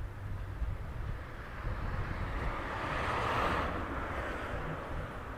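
A vehicle passes by, its tyre and engine noise swelling to a peak about three seconds in and then fading, over wind rumbling on the microphone.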